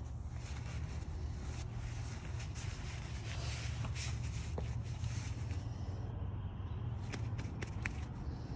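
Close handling noises: a paper shop towel rustling and scraping against a metal oil filter as it is wiped, with a few light clicks, over a steady low rumble.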